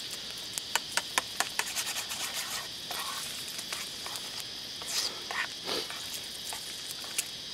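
A utensil clicking and scraping in a small frying pan as eggs and red onion are scrambled over a campfire, the clicks thickest in the first few seconds. A steady high insect chorus runs behind it.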